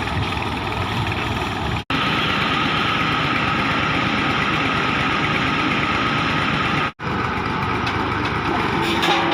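Engine of a tubewell boring rig running steadily, the sound dropping out for an instant twice.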